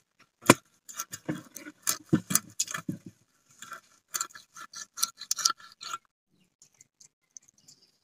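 Rup chanda fish being cut into steaks on a bonti, the fixed upright blade: a run of crunching cracks and scrapes as the fish is pressed through the blade, the sharpest crack about half a second in. The cutting stops about six seconds in, leaving only faint ticks.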